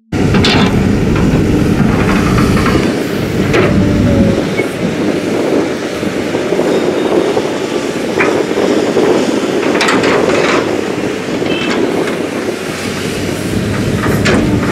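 Tracked hydraulic excavator's diesel engine running under load while digging and loading soil into a dump truck, with several sharp metallic clanks from the bucket and arm.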